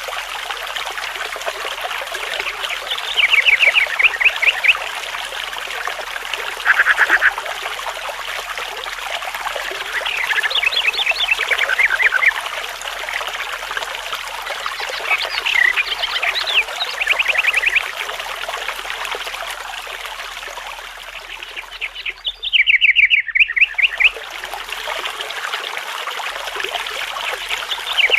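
Songbirds singing short, rapid trills every few seconds over a steady trickling stream. About three-quarters of the way through, the water sound drops out for a moment while a trill carries on.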